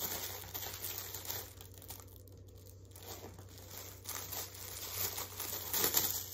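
Thin plastic packaging crinkling and rustling as a sandal is pulled out of its clear plastic bag. The rustling comes in bursts, louder at the start and again near the end, with a quieter spell in between.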